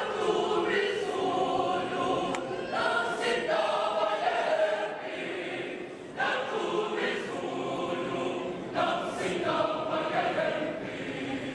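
Mixed high-school choir of male and female voices singing together, with new phrases coming in sharply about every three seconds.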